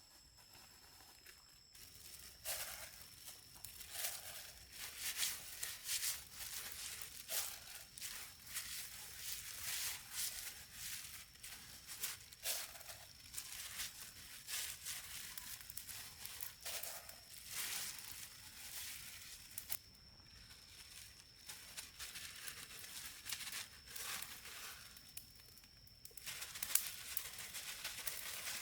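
Irregular rustling, crinkling handling noises: a long run of short crackly scrapes and rustles, starting about two seconds in, with brief lulls, over a faint steady high tone.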